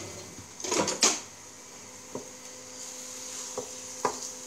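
Pork patty frying in hot olive oil in a frying pan, a steady sizzle, while utensils clatter against the pan: a cluster of knocks about a second in, then a few single knocks.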